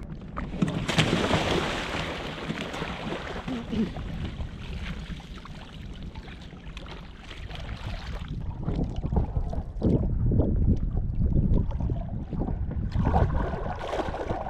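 A Pelican Catch PWR 100 fishing kayak capsizing as a man leans over its side. He plunges into the water with a splash about a second in, followed by several seconds of rushing, churning water. From about eight seconds in, a rougher, lower sloshing of water and wind buffeting the microphone as he stands beside the overturned hull.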